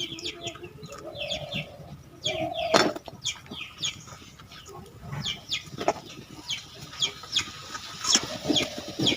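Chickens clucking, with many short high falling chirps throughout. A sharp knock comes just before three seconds in.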